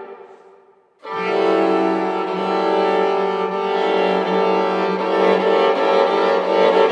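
String quartet of two violins, viola and cello playing contemporary music: a held chord fades away over the first second, then after a brief silence the quartet comes in suddenly with a loud sustained chord that holds, with wavering, sliding notes over it.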